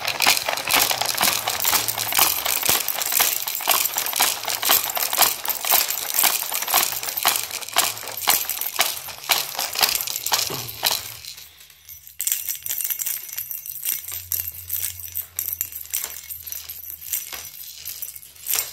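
Plastic toys on a baby activity jumper rattling and clattering in a fast, dense run as the baby bounces and grabs at them, busiest for the first ten seconds or so, then lighter and sparser.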